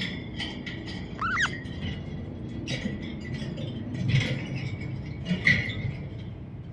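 Budgerigar chirping: scattered short calls, with a quick pair of rising chirps a little over a second in, over a low steady background rumble.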